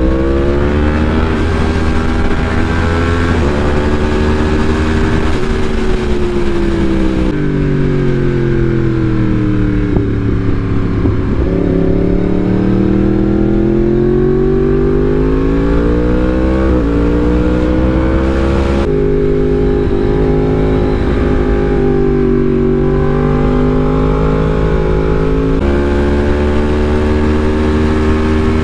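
2016 Yamaha R1's crossplane inline-four engine under way on the road, its pitch sinking and climbing again several times as the throttle is rolled off and back on. Wind rushes over the camera microphone.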